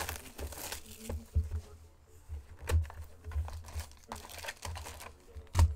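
Trading card hobby box being opened by hand: crinkling and tearing of packaging and cardboard, with a few sharp knocks as the box is handled and the foil card packs are lifted out.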